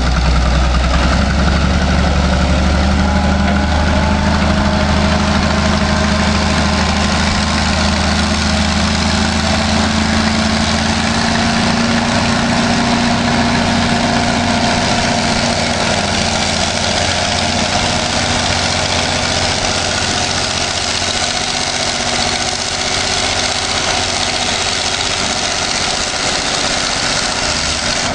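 Caterpillar 988 wheel loader's diesel engine running steadily as the loader drives through water and mud. The low drone is strongest for the first dozen seconds, then weaker.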